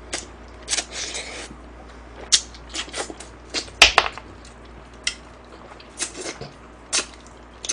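Close-miked eating sounds: irregular wet mouth smacks, chewing and short slurps as a mouthful of galbi jjamppong (spicy noodle soup with beef short rib) is eaten with chopsticks.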